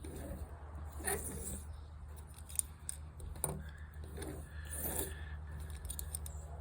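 Broadhead blade edge in a Blade Sled sharpener drawn very lightly across a 1000-grit stone in single swipes: about five short, soft scraping strokes with pauses between them, over a steady low hum.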